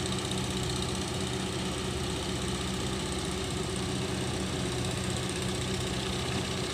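Kobelco crawler excavator's diesel engine running steadily at an even, unchanging pitch while the machine works.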